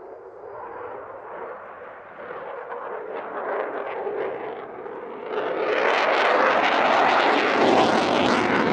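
Eurofighter Typhoon's twin EJ200 turbofans running at display power, the jet noise building and then growing suddenly louder and harsher about five seconds in as the jet pulls round on afterburner.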